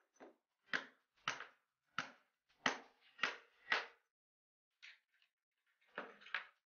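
A hammer tapping a tube drift to drive a ball bearing down onto the spindle of a Chicago Pneumatic CP854 angle grinder. Seven sharp taps come in the first four seconds, then a couple of lighter ones and two more near the end.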